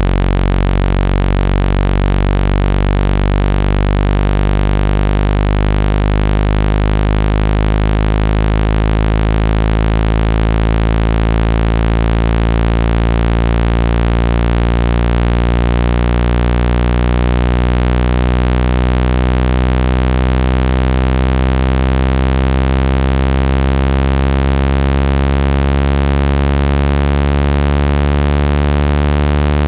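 Synthetic speaker-cleaning tone: a low, buzzy electronic hum full of overtones that slowly rises in pitch, with a steady hiss over it, played to shake dust and water out of an iPhone speaker.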